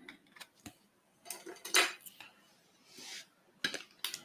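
Hard plastic trading-card holders being handled: a few light clicks and short plastic-on-plastic scrapes, the loudest scrape near the middle, as a card is slid into a rigid toploader and set down among acrylic card stands.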